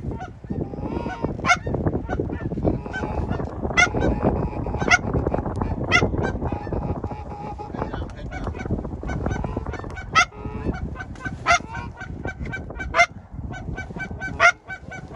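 Canada geese honking and clucking, short sharp calls about once a second, over a steady low rumble.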